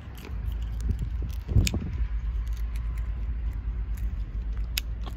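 A steady low rumble with a few sharp light clicks and a jingle of a car key being handled; a louder knock comes about one and a half seconds in.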